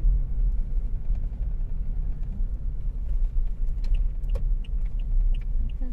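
Steady low road and engine rumble heard inside the cabin of a moving car, with a few faint light clicks in the second half.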